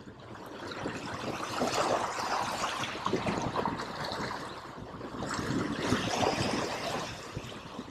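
Waves washing and splashing against the boulders of a rock jetty, surging up twice.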